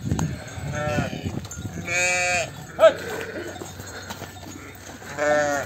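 Sheep in a flock of ewes and lambs bleating, about four separate calls, the longest and loudest about two seconds in and a short high one just after it.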